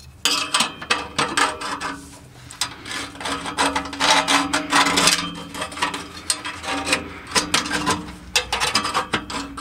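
Metal exhaust band clamp clinking, rattling and scraping against the exhaust pipe as it is fitted around it by hand, over a steady low hum.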